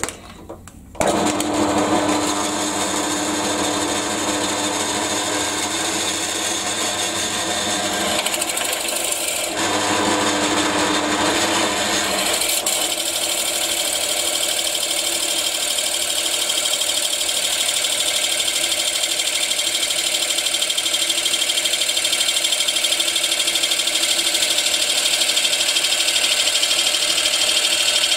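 Pillar drill motor starting about a second in and running steadily. From about twelve seconds in, its 38 mm bit bores into a wooden block, a dense, steady cutting noise over the motor.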